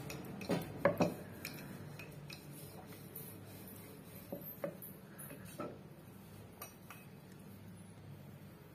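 Rolling pin working dough on a wooden board, with scattered knocks and clicks of the pin against the board, a few close together about a second in.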